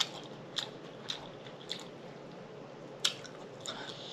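Close-miked mouth sounds of chewing and lip smacking: a handful of short, sharp wet clicks and smacks at irregular intervals over a faint steady hiss.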